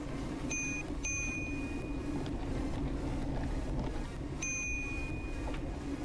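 Bicycle bell rung three times: a short ding about half a second in, a longer ring about a second in, and another ring at about four and a half seconds, warning walkers ahead on the path. Underneath is the steady low rumble of the ride.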